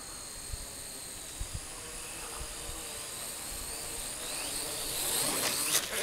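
Ares Ethos QX130 micro quadcopter's small motors and propellers whining, the pitch wandering as it fights the wind and is blown back, growing louder as it comes closer. A sharp knock near the end as it comes down on the grass, with a few faint low wind thumps on the microphone earlier.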